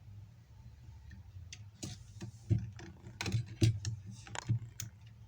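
Irregular small sharp clicks and taps, about a dozen over a few seconds, as multimeter probe tips are set against the pins of a laptop's battery connector on the motherboard. A low steady hum sits underneath.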